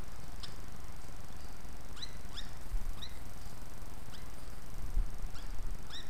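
A hand-held lovebird giving short, sweeping chirps, about six or seven of them at irregular intervals, while being spoon-fed.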